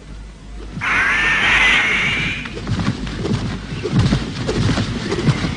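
Cartoon cry of a bird of prey, one long screech with arching pitch starting about a second in, followed by a run of short low thumps.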